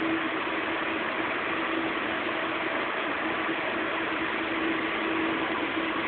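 AEC STAR T5 300 kVA UPS running: a steady rush of cooling fans with a constant electrical hum.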